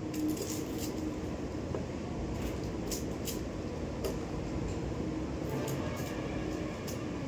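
Steady low rumbling background noise with a faint hum. Over it come scattered faint crisp clicks and crackles from an onion being cut by hand with a knife.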